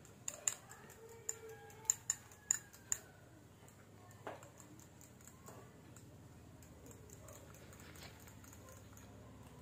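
Utensil clicking and scraping against a metal bowl while flour and egg are mixed: about seven sharp clicks in the first three seconds, then quieter stirring.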